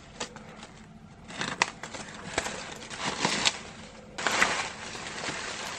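Paper wrapping rustling and crinkling as hands untie the twine and lace bow around a brown-paper package and pull the wrapping loose, with small scattered clicks and a louder rustle a little after four seconds in.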